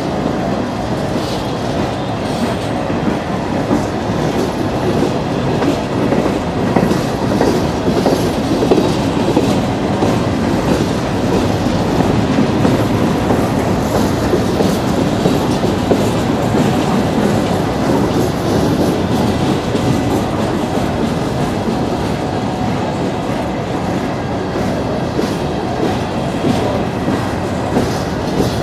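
Steel wheels of a string of coal hopper cars rolling slowly past on the rails: a steady rumble with irregular clicks as the wheels pass over the rail joints.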